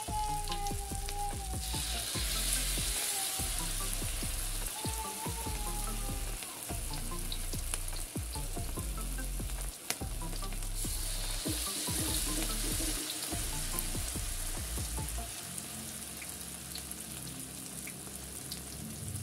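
Vegetable fritter batter deep-frying in hot oil in a wok: a steady sizzle with scattered small pops. The sizzle swells twice as fresh spoonfuls of batter go into the oil.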